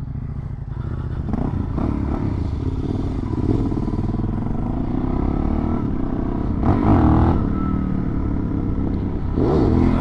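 Suzuki DR-Z400 single-cylinder dirt bike engine under way, its revs rising and falling as it is ridden, with a short sharper rev about seven seconds in and a climbing rev near the end.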